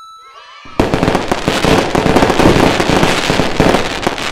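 Cartoon fireworks sound effect: a short ringing tone, then, under a second in, dense crackling and popping of bursting fireworks.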